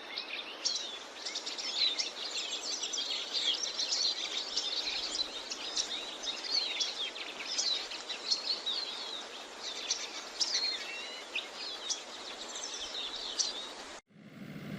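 Many small birds chirping and twittering over a steady hiss. The birdsong cuts off suddenly near the end, leaving a faint steady tone.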